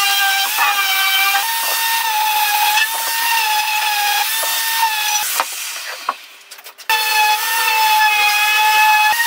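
Electric detail sander with a triangular pad running against pine, a steady high whine with a rasp of abrasive on wood. Around six seconds in the sound falls away, then the sander runs again near seven seconds.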